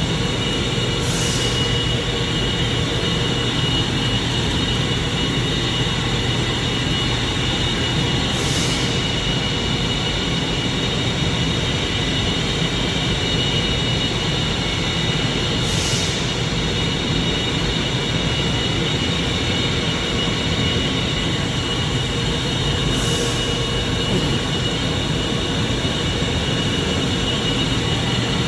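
Steady loud hiss and drone of steam piping and machinery in a mechanical room, with high whistling tones held throughout and a faint higher swish repeating about every seven seconds.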